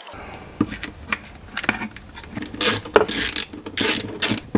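Hand tools tightening small nuts and washers onto an LED light's mounting studs through a plastic housing: scattered clicks and knocks, then three short louder bursts in the second half.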